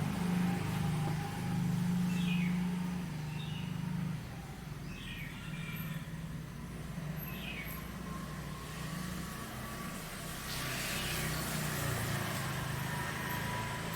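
Outdoor neighbourhood ambience: a steady low rumble of vehicle traffic, with a bird giving short falling chirps every couple of seconds. About ten seconds in, a broad hiss swells up and holds.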